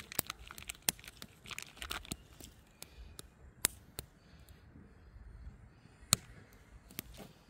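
Small wood kindling fire crackling: scattered single sharp pops a second or more apart, the loudest about six seconds in.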